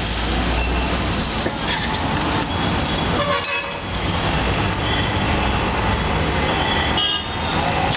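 Busy street traffic: a steady rumble of vehicle engines with a few short horn toots.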